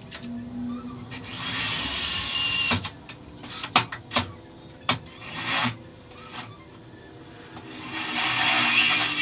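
A power tool runs with a hiss and a faint whine for a couple of seconds. About six sharp metal knocks follow. The tool then starts again near the end.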